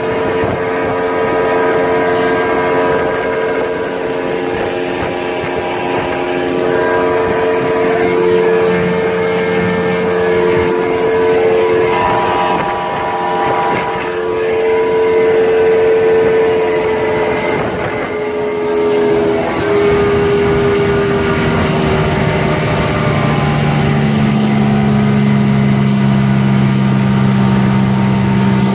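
Yamaha 150 hp V6 two-stroke outboard (OX66 saltwater series) running at cruising speed, over a rush of wind and water. Its pitch steps down twice in the second half as the throttle is eased back, to about 3,900 rpm near the end.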